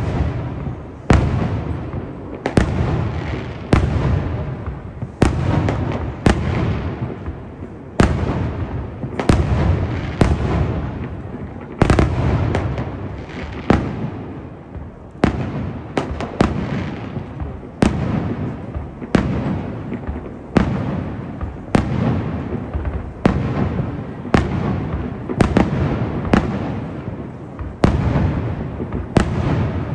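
Aerial firework shells bursting one after another, a sharp bang about every second, each trailing off so that a low rumble runs on between the bangs.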